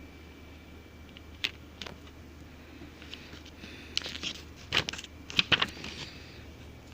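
Handling noises from an album's packaging being unboxed: scattered sharp clicks and short crackly rustles, one about one and a half seconds in and a dense cluster from about four to five and a half seconds.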